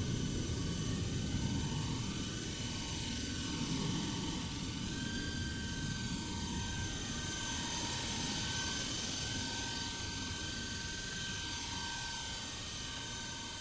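Esky Honey Bee V2 fixed-pitch electric RC helicopter hovering low: a continuous motor whine and rotor buzz whose pitch drifts slowly up and down as the rotor speed is adjusted to hold height.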